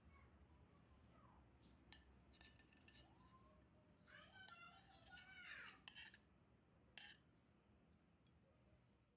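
Faint clinks and scrapes of a metal spatula against a plate, a few sharp ticks spread through otherwise near silence.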